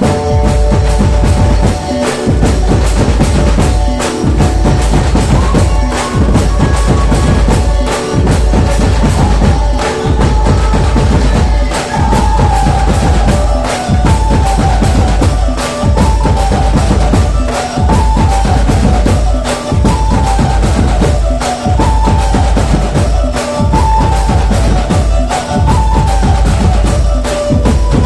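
Gaura-Gauri jas geet, Chhattisgarhi devotional folk music: a heavy drum beat with percussion under a repeating melody line.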